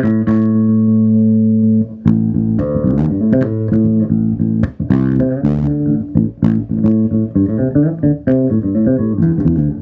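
Birdsong Cortobass short-scale electric bass played on its bridge humbucker: one long held low note for about two seconds, then a quick run of plucked notes.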